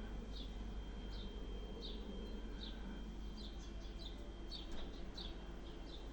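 A bird chirping repeatedly, short high chirps about once or twice a second, over a steady low background noise.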